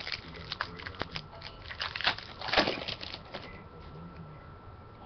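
Foil trading-card pack wrappers crinkling and crackling as they are handled and opened, with a run of sharp clicks and rustles over the first three and a half seconds, loudest about two and a half seconds in, then fading to quiet handling of cards.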